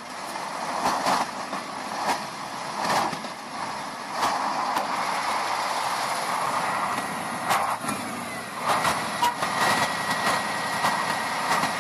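Heavy six-wheel-drive truck working on a rough winter road, its engine running under load with repeated knocks and clatter. A faint steady whine joins in about eight seconds in.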